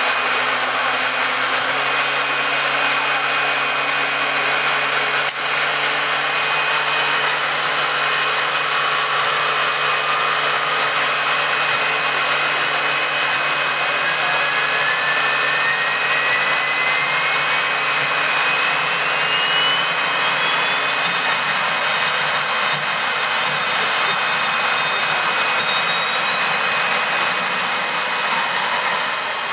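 Homemade jet engines running with a loud, steady rushing noise. A turbine whine climbs steadily in pitch over about fifteen seconds, holds, then climbs again near the end as an engine spools up. A low hum underneath stops about two-thirds of the way through.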